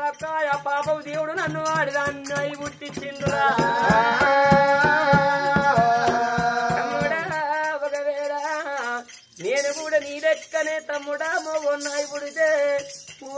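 Telangana Oggu Katha folk music: sung voices over a steady jingling of small hand cymbals and ankle bells. A barrel drum beats under them through the first half, where several voices join in together. There is a brief break just after 9 s before the singing resumes.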